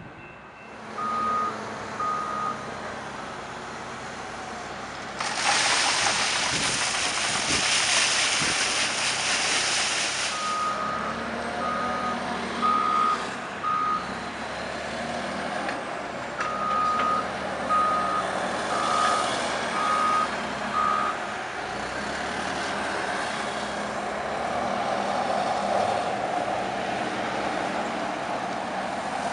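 Caterpillar wheel loader's diesel engine running while its reversing alarm beeps about once a second in three short runs. A loud rushing noise lasts about five seconds, beginning some five seconds in.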